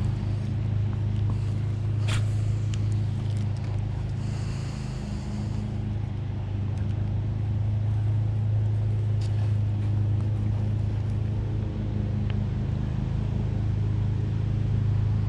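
Grass-cutting mower engine running steadily nearby, a low even drone, with a couple of faint clicks over it.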